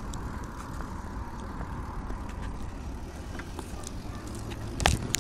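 Mini moto (pocket bike) being ridden along a paved path: its small engine running with a steady low rumble and a faint engine note that slowly drops in the first couple of seconds. There are scattered light clicks, and a single louder knock about five seconds in.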